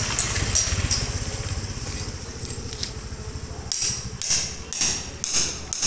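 A motor scooter's small engine runs close by over the first couple of seconds, then fades away. After that, footsteps on gritty concrete and dirt go on at about two steps a second.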